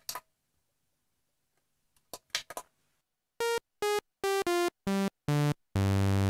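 Waldorf Blofeld synthesizer played from a keyboard: six short, bright, buzzy notes stepping down in pitch, then a longer low note. Each note holds at an even level and stops cleanly. A few faint button clicks come before the notes.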